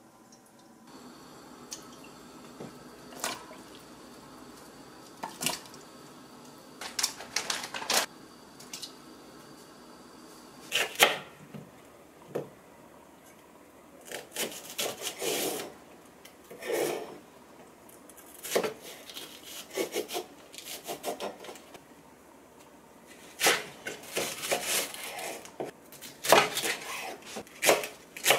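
Chef's knife cutting Korean green onions (daepa) on a wooden cutting board: scattered knocks on the board and bursts of cutting strokes, busier in the second half.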